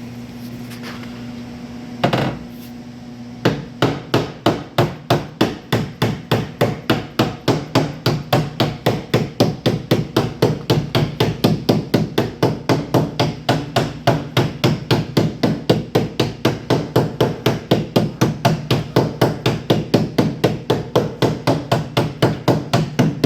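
Hammer tapping rapidly and evenly on the sheet-metal quarter panel and wheelhouse while it is held under pull, at about three to four blows a second, to relieve a buckle in the panel. One single blow comes about two seconds in before the steady tapping starts, with a steady hum underneath.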